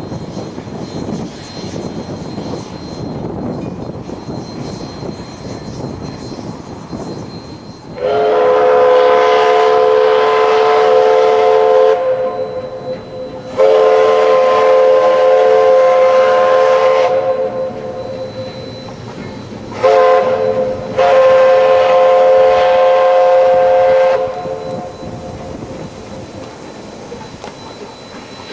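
A train's multi-note chime horn sounding the grade-crossing signal: two long blasts, one short and one long. Before the blasts there is the steady rumble of the train running.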